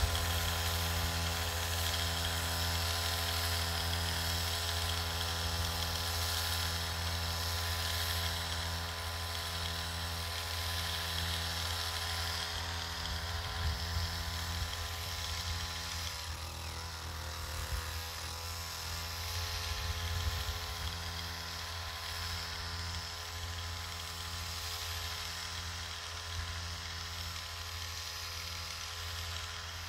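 A small motor running steadily with a droning hum. The hum wavers briefly about halfway through, then settles slightly quieter.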